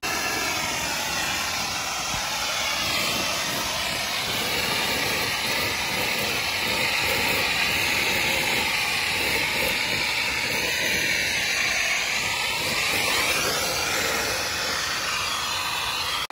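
High-pressure water jet from a pressure-washer wand blasting into a roof gutter to flush it out: a steady, loud hiss of spray.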